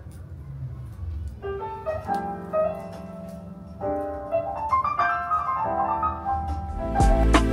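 Piano music, quiet at first, with single held notes; a louder, fuller passage of music comes in near the end.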